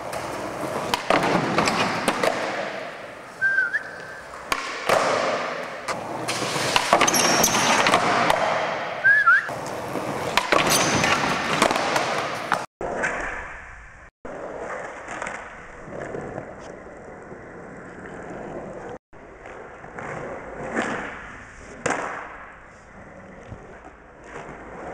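Skateboard wheels rolling on smooth concrete, broken by sharp clacks of the board popping and landing, and two short squeaks in the first half. About halfway through the sound changes abruptly to a quieter stretch of rolling and scattered clacks.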